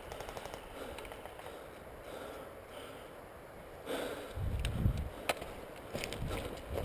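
Handling and movement noise with a low rumble on the microphone, swelling about four seconds in, and one sharp click a second later.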